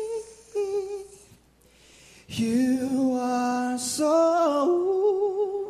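A young man singing solo and unaccompanied into a handheld microphone, in short phrases with a pause of about a second. A lower note is followed by a brief hiss about four seconds in, then a high note held with vibrato near the end.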